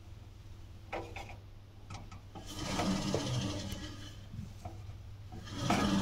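The drum of a Samsung Eco Bubble washing machine turned by hand, with a rubbing, rustling scrape from inside the tub that swells about three seconds in and again near the end. It is the sign of a foreign object trapped in the tub and rubbing against the drum, as the repairman judges.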